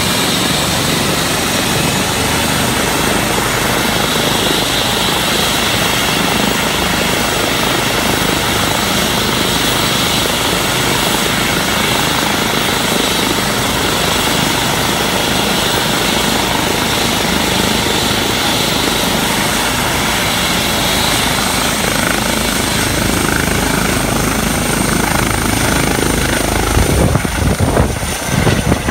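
Eurocopter EC135 helicopter running on the ground, rotors turning, with a steady turbine whine over the rotor noise. From about twenty seconds in the high whine climbs as power comes up. Near the end it lifts off and the sound turns uneven and gusty.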